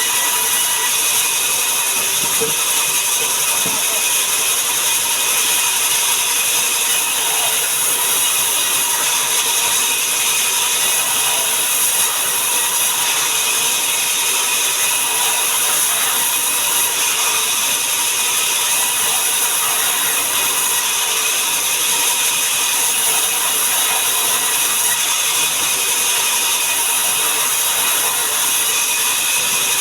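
Sawmill machinery running steadily while sengon wood is sawn into boards: a loud, constant mechanical noise with a high whine that holds level throughout.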